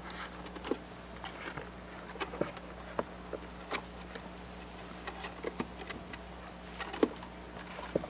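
Irregular light clicks and taps of plastic and metal as the Panasonic Toughbook CF-30's display assembly is handled and laid over the laptop's rear cabinet, over a faint steady electrical hum.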